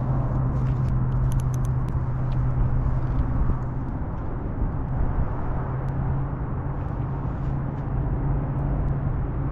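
Wind buffeting the microphone, a dense low rumble over a steady low hum, with a few light clicks in the first couple of seconds.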